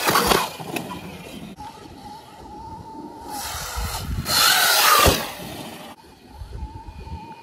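Sur-Ron electric dirt bike's motor whining as it rides and launches off a dirt jump, the whine rising and falling while the bike is in the air. About five seconds in there is a sharp thump as the bike lands.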